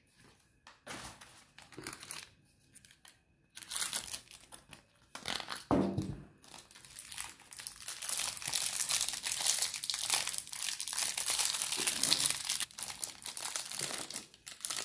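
Plastic and foil toy-packaging wrappers crinkling as they are handled and pulled open by hand. Sparse rustles at first, then continuous crinkling from about four seconds in.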